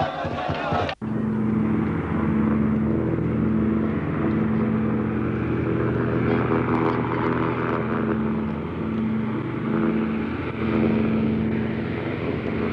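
Twin radial piston engines of a Catalina flying boat running at high power in a steady, deep drone during its takeoff from the water. The drone starts about a second in, where chanting cuts off abruptly.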